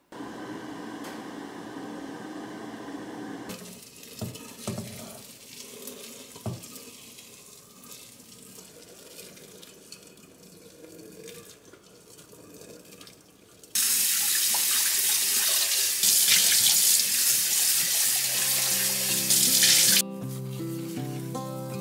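Water heating in a Balmuda electric kettle, then boiling water with sodium percarbonate poured from its gooseneck spout into a stainless steel sink drain, with a few knocks. About 14 seconds in, loud splashing water starts, a tap running hard into the sink, and background music comes in near the end.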